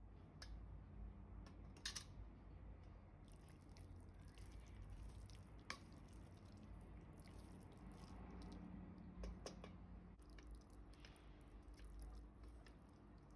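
Faint wet squelching of saucy spaghetti being stirred and scooped with a wooden spoon in a stainless steel pot. A few sharp clicks of the spoon against the pot sound over a low steady hum.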